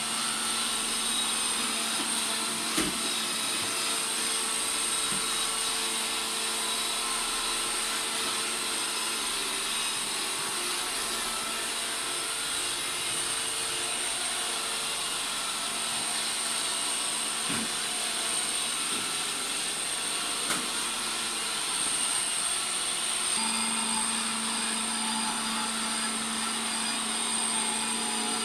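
Robot vacuum cleaner running: a steady motor hum with a high fan whine, and a few light knocks along the way.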